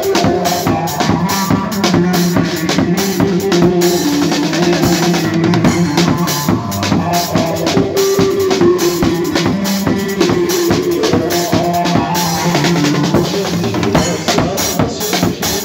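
Halay dance music: a drum kit played live in a driving, steady rhythm of bass drum, snare and cymbal strikes, under a gliding melody line.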